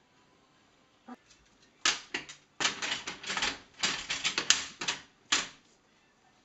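Plastic dog flap clattering in rapid runs of sharp knocks as a spaniel jams a French bread stick against it and tries to push the loaf through. The knocking starts about two seconds in and stops with a last knock a little before the end.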